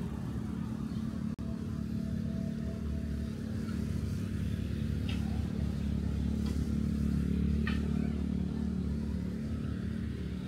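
A motor vehicle's engine running close by, a steady low rumble that grows louder until about eight seconds in and then eases off as it passes.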